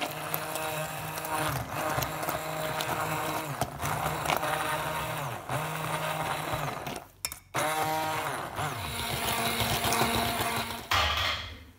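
Immersion (stick) blender running in a pot of cooked carrot soup, puréeing the chunks into a smooth purée, its motor pitch wavering as it churns. It stops briefly about seven seconds in, then runs again until near the end.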